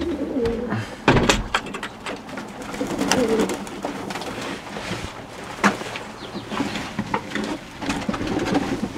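Fantail pigeons cooing, among many sharp clicks and knocks.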